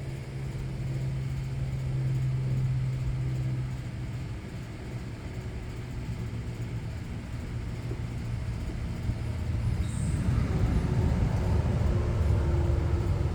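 Low, steady engine rumble with a held hum, growing louder about ten seconds in.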